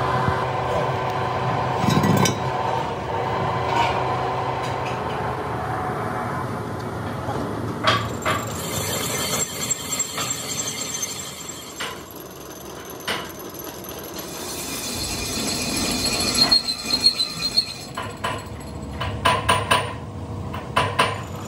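Machine-shop noise: a steady machine hum at first, then a run of sharp metallic clicks and clinks as cast-iron electric motor parts and a steel vernier caliper are handled.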